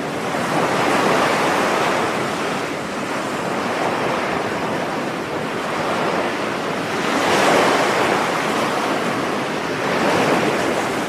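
Ocean surf breaking and washing in. A steady rush of noise that swells and eases over several seconds, loudest about a second in, around seven and a half seconds in, and again near the end.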